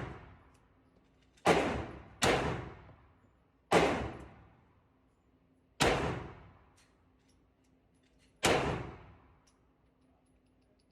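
Five shots from a Ruger Security-380 pistol chambered in .380 ACP, fired at an uneven, unhurried pace, each with a short echoing decay.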